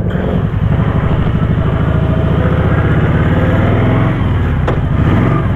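Kawasaki Vulcan 1700 Voyager's V-twin engine running under way, a steady dense pulse. The engine note changes briefly about four seconds in, with a single sharp click near five seconds.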